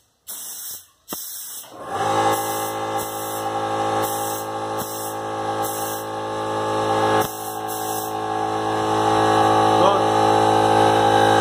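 A gravity-feed paint spray gun hisses in short bursts as the trigger is pulled and released. From about two seconds in, background music with long held tones takes over as the loudest sound, with a few more short spray bursts underneath.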